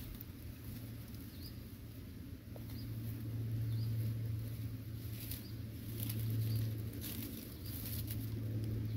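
Hands rustling and scraping through dry leaf litter and grass, over a steady low hum, with a faint short high chirp about once a second.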